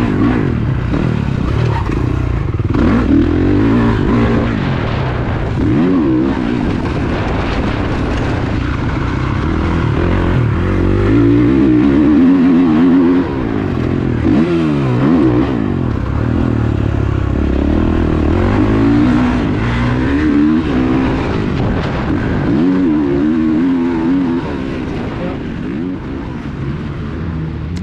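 Motocross bike engine revving up and dropping off again and again as the rider accelerates and shifts through the gears, heard from an on-board camera.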